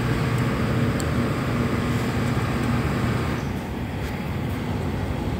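Steady machine hum and rumble, with a low hum under a hiss that eases slightly after about three seconds.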